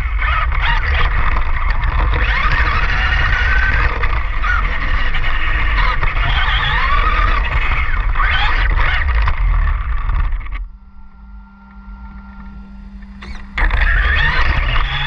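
RC car with paddle tires driving on sand, heard from a GoPro mounted on it: a motor whine that rises and falls with the throttle over heavy rumbling from the drivetrain and wind on the microphone. About ten seconds in it drops to a quiet, steady hum for a few seconds, then the driving noise comes back loud.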